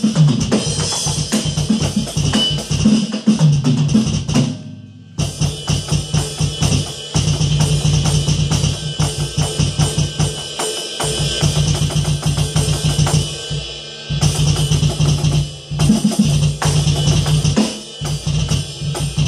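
Roland V-Drums electronic drum kit played along to a backing song, with a steady rhythm of drum hits and cymbals over a bass line. The music briefly drops out about four and a half seconds in, then comes back.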